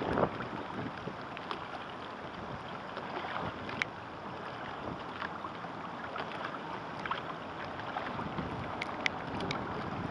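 Choppy water washing and splashing against a sailing kayak's hull, with wind buffeting the microphone. A few sharp ticks of spray cut through, clearest about four seconds in and twice near the end.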